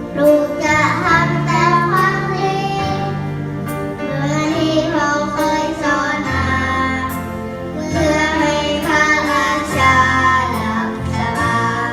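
A girl singing a Thai song over a backing track amplified through a PA system, with held, wavering notes over a stepping bass line.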